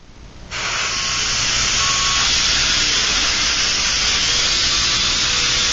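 Air Hogs indoor RC toy helicopter's small electric motor and rotor spinning up about half a second in, then running steadily with a loud, hiss-like buzz.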